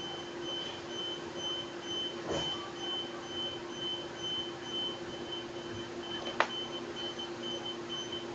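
Electronic beeping repeating evenly at about two beeps a second over a steady low hum, with one sharp click about six seconds in.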